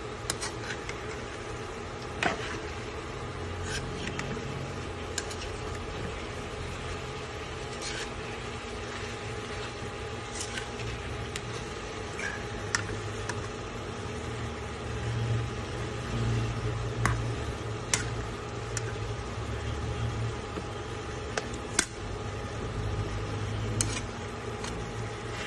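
Steady mechanical hum with a faint hiss over chicken pieces cooking in a metal pot, broken by about ten short sharp clicks of a utensil against the pot.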